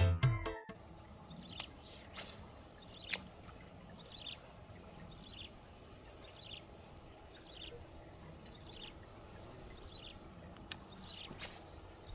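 Quiet outdoor ambience: a steady high insect drone, with a short chirping call, likely a bird's, repeated about once a second and a few sharp clicks. Music cuts off in the first second.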